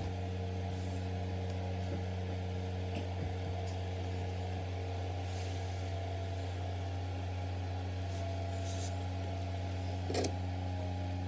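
Steady low hum with even overtones, unchanging throughout, with a few faint brief rustles on top.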